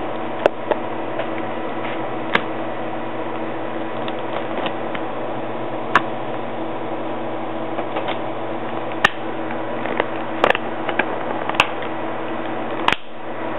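Steady fan hum with about seven sharp clicks scattered through it.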